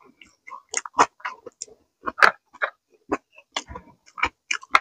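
Close-miked chewing of a Thai salad with raw vegetables: irregular wet crunches, smacks and mouth clicks, the loudest about two seconds in.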